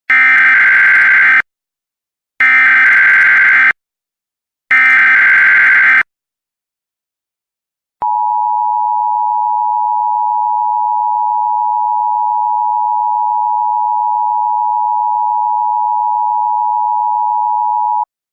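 Emergency Alert System signal: three bursts of SAME header data tones, each about a second and a half long. After a short gap comes the steady two-tone EAS attention signal, held for about ten seconds before it cuts off. Together they mark the start of a new emergency alert.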